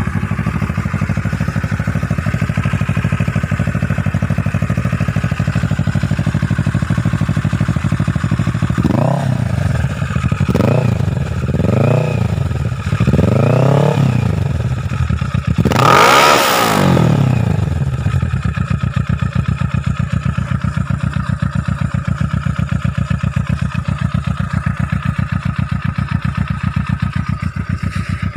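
Kawasaki Ninja 650's parallel-twin engine running through an Akrapovic full exhaust system. It idles steadily, is blipped four times about a second and a half apart, then is revved higher once, and drops back to a steady idle.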